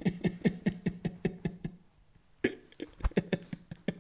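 A man's held-back laughter: quick pulses about five a second, a short break, then a second run of laughs.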